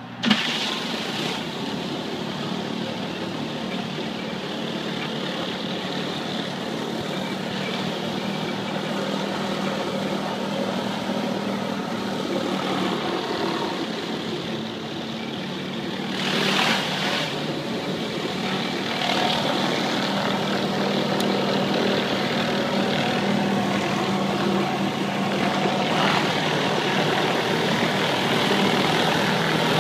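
Pressure washer running steadily while a rotary surface cleaner's spinning jets spray water onto concrete: a steady engine hum under a hiss of spraying water, briefly louder about halfway through.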